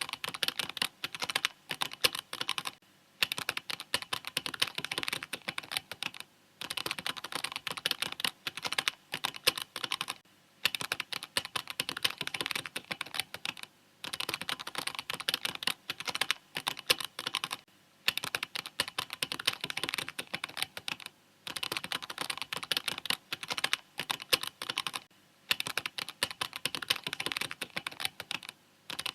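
Mechanical keyboard typing: fast runs of key clicks lasting a few seconds each, broken by short pauses about every three to four seconds.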